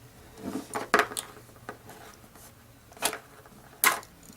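An earring picking and scraping at the tape on a mail-order box, giving a few sharp scratches and clicks, the loudest about a second in and near the end.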